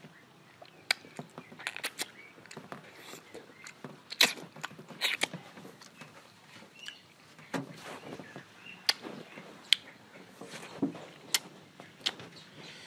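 Close-up mouth sounds of eating mango slices: irregular wet smacks, sucks and sharp clicks as the flesh is bitten and sucked off the peel, with a few louder ones about four and five seconds in.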